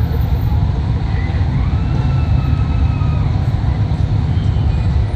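Muscle car engines running with a loud, steady low exhaust rumble.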